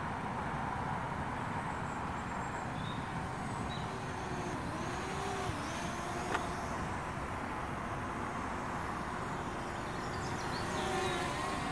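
Faint whine from the MJX Bugs B7 quadcopter's brushless motors, rising and falling in pitch as it flies, over a steady rushing noise. A sharp click about six seconds in.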